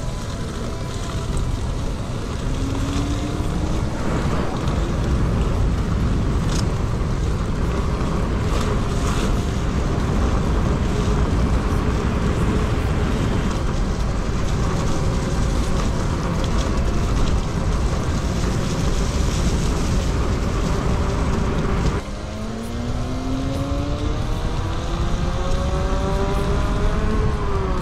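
Riding a KingSong S22 electric unicycle: wind rushing over the microphone, and the hub motor's whine holding steady. About 22 seconds in, the whine climbs in pitch for several seconds as the wheel speeds up, then starts to drop right at the end.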